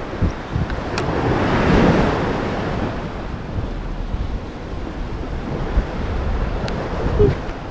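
Sea waves breaking and washing against a concrete sea wall, with wind buffeting the microphone; the surf swells about two seconds in.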